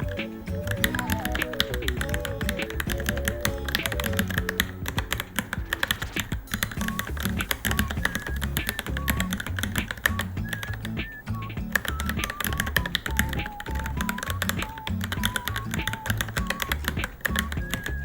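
Fast, continuous typing on a Varmilo Minilo mechanical keyboard, many keystrokes a second, over background music with a melody and a repeating bass beat.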